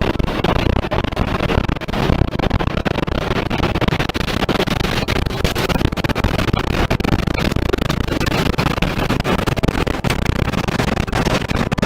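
Tornado passing close by: a loud, steady roar of wind with constant crackling and rattling of debris strikes, close enough that the air pressure is dropping.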